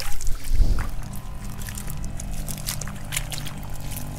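Footsteps splashing and sloshing through ankle-deep water over eelgrass, with a loud low rumble on the microphone in the first second and a steady low hum underneath.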